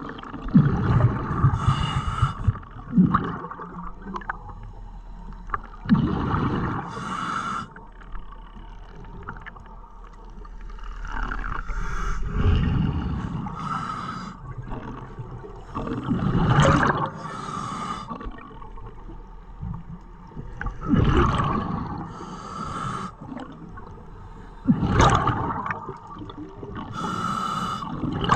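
Scuba regulator breathing heard underwater, repeating about every five seconds: a rumbling burst of exhaled bubbles, then a hissing breath drawn through the regulator.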